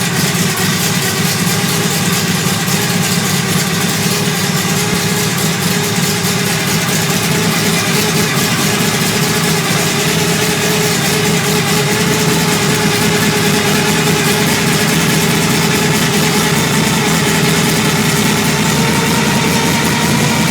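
A 347 cubic-inch stroker V8 idling steadily.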